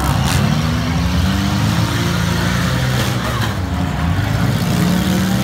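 Several front-wheel-drive demolition derby cars' engines revving hard together, their pitches rising and falling as the cars drive and ram, with a couple of sharp bangs of cars colliding.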